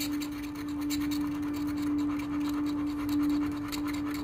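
Scratch-off lottery ticket being scraped with a metal edge: quick, repeated scratching strokes over a steady low hum.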